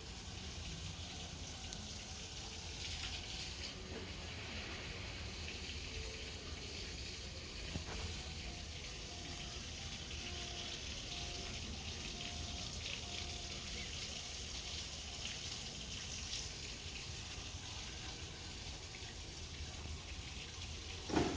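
Steady hissing background noise, with a short knock near the end.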